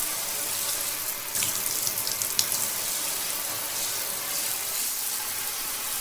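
Water running from a tap into a sink, a steady splashing stream.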